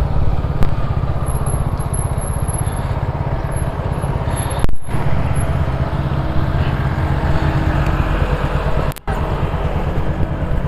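Motorcycle engine running at low speed and idling: a steady low engine note with fast even pulsing, cutting out briefly twice.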